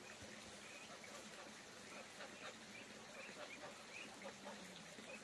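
Ducks calling faintly, a scatter of short soft calls over a quiet background.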